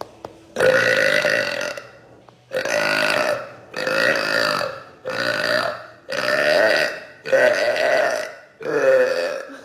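A girl burping: seven long, loud burps in a row, each lasting about a second, with short pauses between them.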